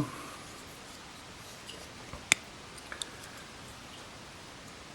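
A few small clicks and ticks as a folding knife is handled, with one sharp click a little over two seconds in and a smaller one about a second later.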